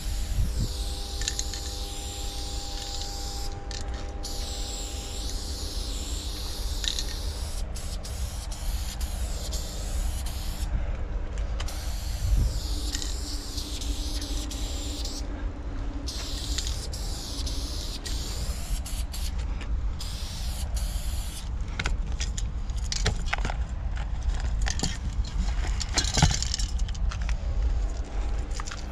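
Aerosol spray-paint can hissing in long bursts with brief pauses as graffiti letters are sketched, over a steady low rumble.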